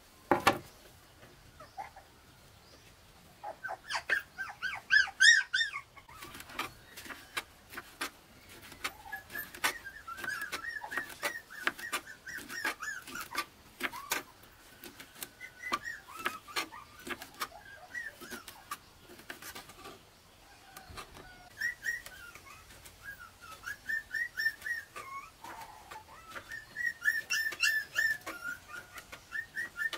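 Runs of short, high-pitched cries from a small animal, loudest about five seconds in, over quick clicks of a knife cutting sausage on a plastic cutting board.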